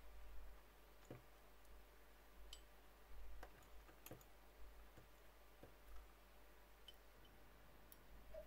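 Near silence with faint, scattered clicks of pliers picking loose steel bearing balls out of a plastic box and setting them into the greased bearing cup of a vintage Normandy bicycle hub.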